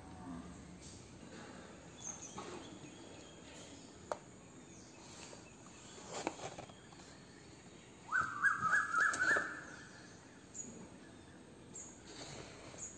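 A bird chirps in a quick run of notes about eight seconds in, the loudest sound in an otherwise quiet stretch. Faint taps and rustles come from a paperback textbook being held and shifted in the hands.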